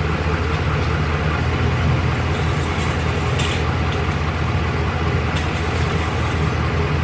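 A 2012 Ram 1500's 5.7-litre Hemi V8 idling steadily, warmed up after running.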